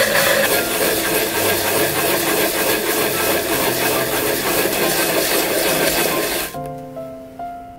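An onion being grated by hand on a white grater plate over a glass bowl: a steady wet rasping that stops about six and a half seconds in, leaving soft background music.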